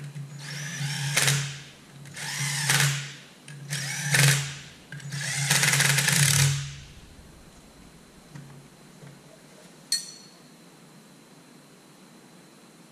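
Cordless power driver running bolts in, in four bursts that each get louder before they stop, tightening an A/C compressor onto its adapter bracket. A single sharp click about ten seconds in.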